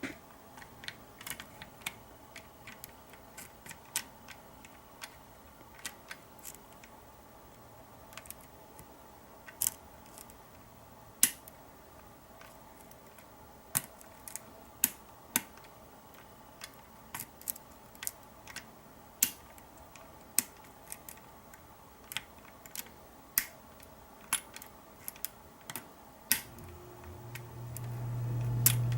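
Small, irregular metallic clicks and ticks of a lock pick working the sliders of a Kwikset SmartKey deadbolt, roughly one sharp click a second. A low hum comes in near the end.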